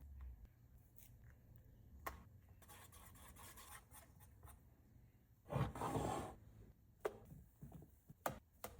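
Faint kitchen handling noise: light scraping and rubbing with scattered clicks, a louder scrape or rustle lasting under a second about five and a half seconds in, and a few sharp clicks near the end.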